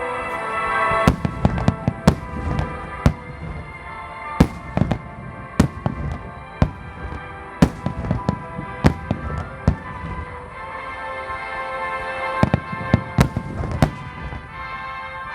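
Fireworks shells bursting in a rapid series of sharp bangs, about twenty of them, with a brief lull in the middle and a quick cluster near the end, over music playing throughout.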